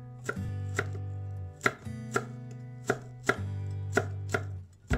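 Chef's knife slicing a scallion on a wooden cutting board: about nine sharp, unevenly spaced knocks of the blade meeting the board.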